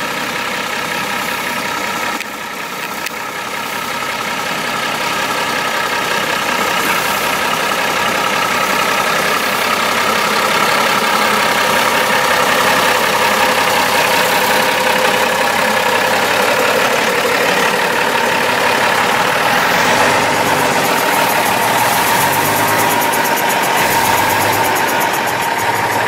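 Mercedes-Benz Unimog engine working steadily under load as the truck crawls up a steep off-road slope, with a steady whine over it. It grows louder over the first several seconds, then holds steady.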